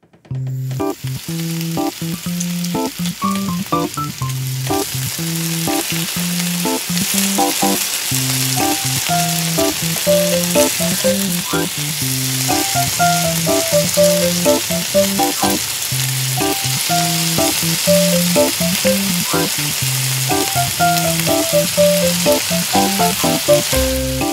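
Hot oil sizzling steadily in a miniature wok as battered seafood pancake pieces deep-fry in it, with a light melodic background tune underneath.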